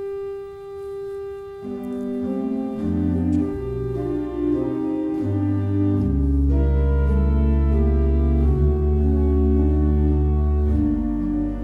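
Church pipe organ playing a slow piece. A single held note is joined by further voices about two seconds in, building into sustained chords, and deep bass notes come in around six seconds.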